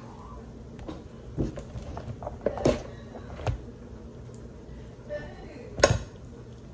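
Kitchen handling sounds: a few scattered knocks and clicks, with the sharpest and loudest knock near the end.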